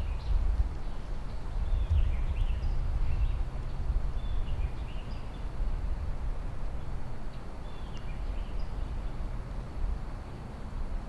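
Faint songbird chirps and short calls come in scattered groups over a steady low rumble.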